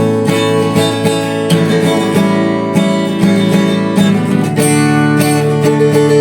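Instrumental music: an acoustic guitar playing chords, strummed and picked, with no singing.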